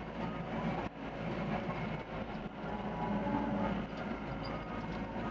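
Doosan DX55 excavator's diesel engine running, with a dense mechanical clatter from the machine and a brief drop in level about a second in.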